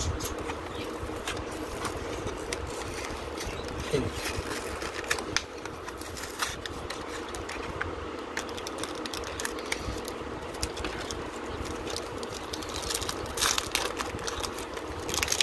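Foil trading-card booster pack crinkling in the hands in scattered short crackles, turning into a denser crackling as the wrapper is torn open near the end, over a steady background hum.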